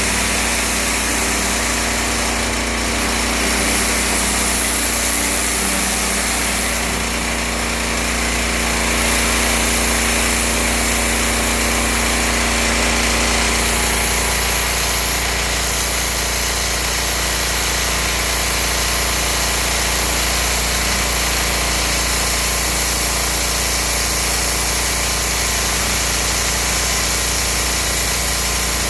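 Petrol pressure washer running steadily: its small petrol engine drones over a constant hiss, and its note shifts slightly about halfway through.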